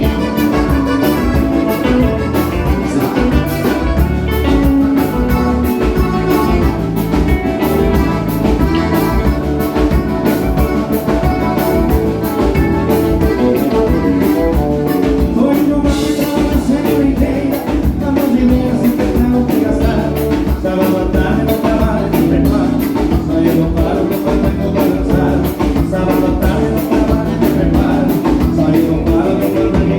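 Live band playing a vanera, a gaúcho dance rhythm, with singing over a steady, regular beat.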